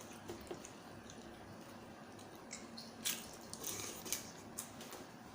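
Close-up eating sounds of spicy Thai seafood salad: wet, squishy chewing and biting with short smacks and clicks, the loudest cluster about three to four seconds in.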